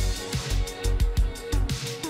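Background music with a steady electronic beat and heavy bass.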